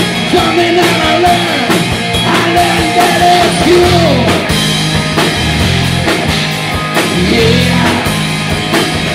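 Live rock band playing loud: electric guitars and a drum kit, with a bending guitar line over the beat. The low end gets heavier about four seconds in.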